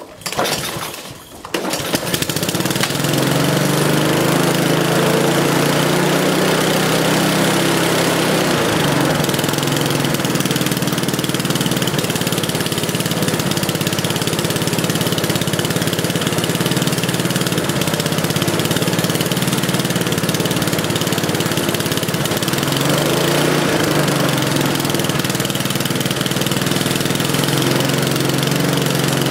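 SV150 lawnmower engine, running on a Briggs and Stratton carburettor fitted in place of its own carb and governor linkages. It starts about half a second in, falters briefly, then runs steadily, with nothing on the makeshift setup sealed properly.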